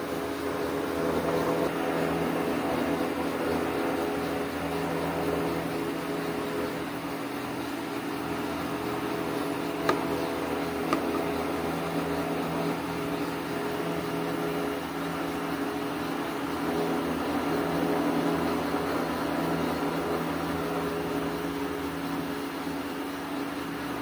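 Steady mechanical hum with a few fixed tones, and two faint clicks about ten and eleven seconds in.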